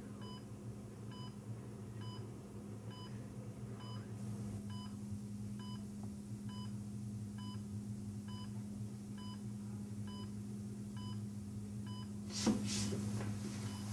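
Hospital patient monitor giving short, regular beeps over a steady low hum, the beeps stopping about twelve seconds in. A short, louder noise comes near the end.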